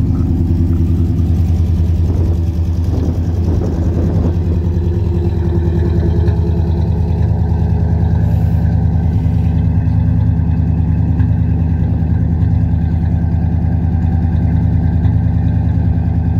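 Engine of a custom square-body Suburban dually idling steadily, heard from the side-exit exhaust as a low, even running note.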